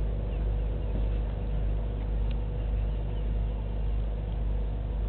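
Steady low rumble and hum of the outdoor feed, with faint birds chirping now and then and a single sharp click a little after two seconds in.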